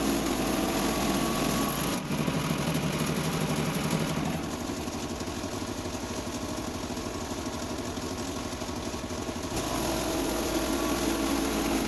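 Small gasoline engine of a Woodland Mills HM126 portable band sawmill running steadily, its sound changing abruptly about two, four and nine and a half seconds in.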